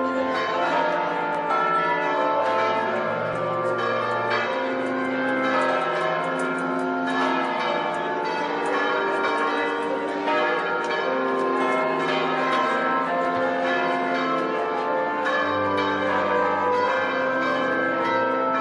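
Church bells pealing continuously, several bells ringing over one another, with new strikes every second or two.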